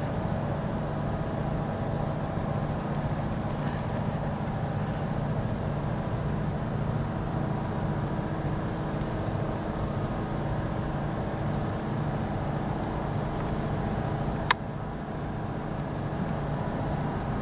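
Steady low outdoor background rumble, with a single sharp click about three seconds before the end.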